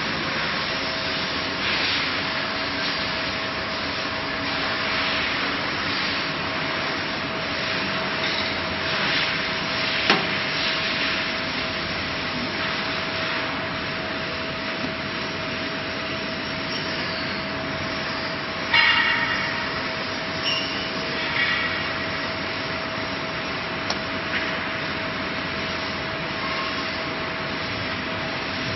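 Syringe filling machine for solder paste and flux gel running: a steady mechanical hiss with a constant thin tone, a few sharp clicks, and a brief louder burst about two-thirds of the way in.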